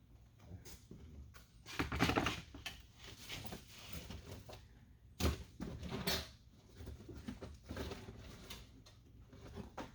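Irregular knocking, clicking and rustling of hands working plastic door trim, clips and hand tools, with the sharpest knocks about two seconds and about five seconds in.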